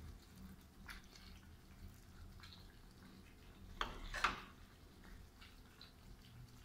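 Gravy being spooned over kofta balls in a glass bowl: faint wet drips and plops, with two louder knocks about four seconds in.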